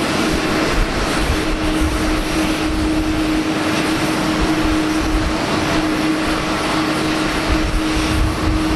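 Boeing 737-800's CFM56-7B turbofan engines running at low taxi power, a steady engine noise with one constant low tone held throughout.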